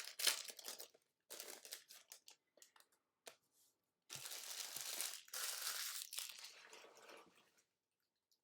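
Plastic wrapper of a trading-card pack crinkling and tearing as it is opened by hand: scattered crackles at first, then a longer stretch of steady crinkling from about four seconds in that dies away near the end.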